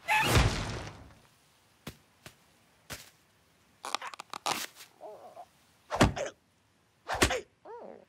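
Cartoon slapstick sound effects: a loud crash at the start that dies away over about a second, then scattered small clicks and clatters, and two heavier thuds about six and seven seconds in. Short squeaky cries from the ostrich character come between and after the thuds.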